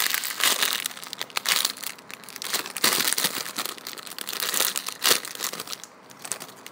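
Clear plastic bag crinkling as hands handle a small toy inside it, in irregular bursts that thin out near the end.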